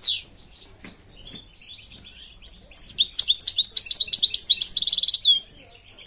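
A caged European goldfinch singing. A twittering phrase breaks off just after the start, and after a pause a longer run of fast, high notes of about three seconds follows, ending in a quick trill.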